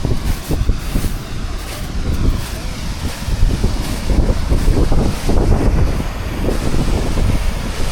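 Wind buffeting the microphone: a loud, gusting rumble that rises and falls.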